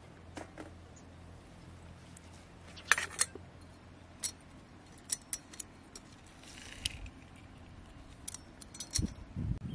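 Scattered light metal clicks and clinks from a hand-held metal lemon squeezer and steel utensils being handled over a clay pot of dal, with a few dull knocks near the end.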